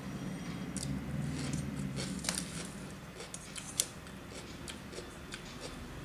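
Fingers mixing rice on a steel plate: a run of small clicks and soft squelches, with sharper taps about two seconds in and again near four seconds.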